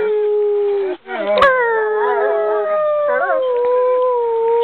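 Wolfdogs howling: a long, steady howl breaks off about a second in, then a new howl starts high and slowly falls, while a second, wavering voice joins for a moment. A short sharp click comes just after the break.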